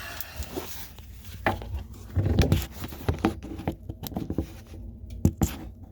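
Scattered, irregular clicks and knocks, with a heavier low thump about two seconds in.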